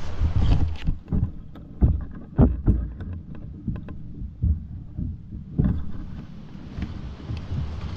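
Irregular knocks, scrapes and rustles of kayakers handling their boats and gear, over a low rumble of wind on the microphone. A louder knock comes a little past the middle.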